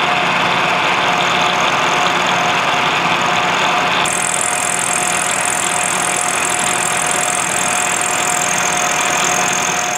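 Milling machine running with its end mill cutting a cast iron valve-body casting, milling a fillet flat: a steady motor hum and tone under the hiss of the cut. About four seconds in, a higher hiss grows louder and stays.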